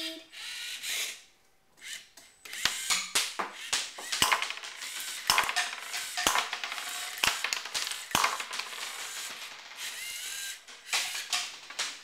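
Lego Mindstorms NXT 2.0 Shooterbot's servo motors whirring in short runs as it drives and turns on its treads, with a string of sharp clicks and knocks as it fires plastic balls.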